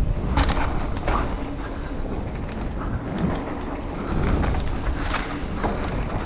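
Mountain bike riding fast down a dirt trail: wind rushing over the action camera's microphone, tyres scrubbing through loose dirt through the berms, and the bike rattling with scattered clicks and knocks.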